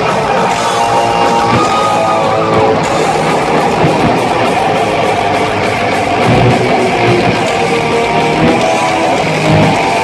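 Thrash metal band playing live on stage: loud distorted electric guitars with bass and drums, fast riffing with no vocals.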